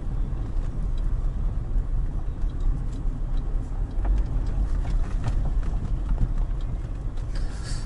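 Land Rover Freelander 2 driving, a steady low rumble of road and engine noise with scattered faint knocks from the rear suspension. The knocking is the sign of a worn rear upper strut mount.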